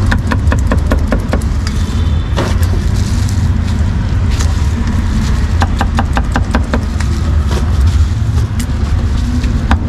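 A cleaver chopping cucumber on a round wooden chopping block: quick runs of sharp knocks as the blade strikes the wood. Under it runs the steady low rumble of street traffic.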